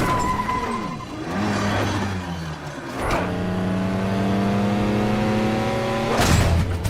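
Car engine revving hard and accelerating, its pitch climbing steadily for about three seconds, with a sharp bang about three seconds in and another just before the end.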